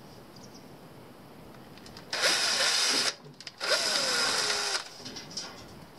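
Cordless drill-driver spinning a self-drilling screw through the thin sheet-steel window-sill flashing to bore the screw holes, in two bursts of about a second each. In the second burst the motor's pitch slides down.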